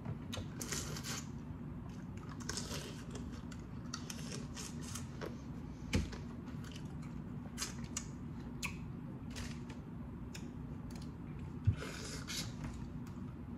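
Boiled crawfish being cracked apart and peeled by hand and eaten: irregular sharp crackles and clicks of shell, a few short wet sucking sounds, over a steady low hum.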